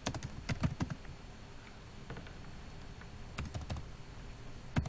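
Keystrokes on a computer keyboard, typed in short bursts of clicks with pauses between, and one sharper click near the end.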